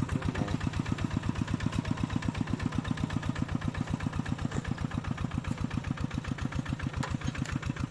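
Tractor engine running steadily with an even chugging beat of about nine firing pulses a second.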